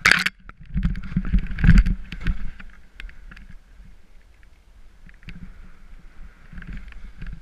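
Skis swishing through deep powder snow among trees, heard from a head-mounted camera. A sharp scrape at the very start fits branches brushing past the camera. Then comes a loud, uneven low rumble for the first couple of seconds, settling into a quieter steady swish.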